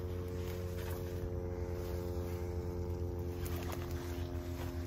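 A steady motor hum, an engine running at constant speed with no change in pitch.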